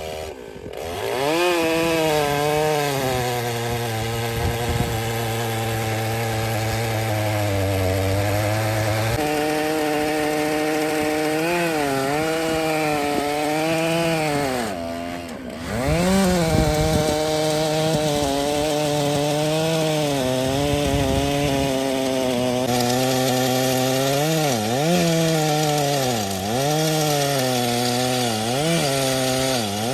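Two-stroke chainsaw driving an Alaskan chainsaw mill through a big log, running under load. Its pitch sags and recovers several times as it works the cut, most often near the end, with a brief break about halfway through.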